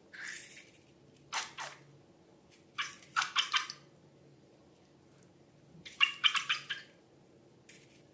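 Slime being squeezed and worked by hand: four or five short bursts of wet, crackly squishing with quick little pops, the loudest around six seconds in.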